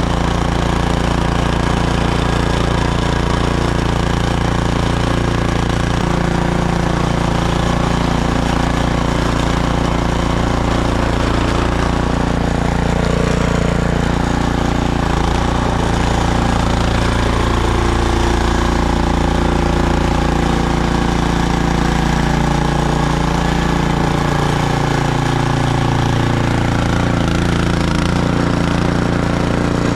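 Snowblower's small gasoline engine running steadily at constant speed with a rapid low chugging. The engine is still warming up in the cold, which the owner takes for why it is throwing poorly.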